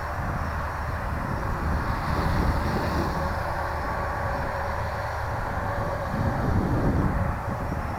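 Armattan CNC 355 quadcopter flying, its brushless motors and propellers whining at varying throttle, with a wind-like rumble on the microphone. It swells louder about two seconds in and again near the end.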